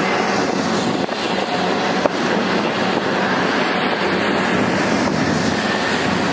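Double-stack container freight train rolling past: a steady rumble and rattle of wheels on rail, with a faint thin squeal and one sharp click about two seconds in.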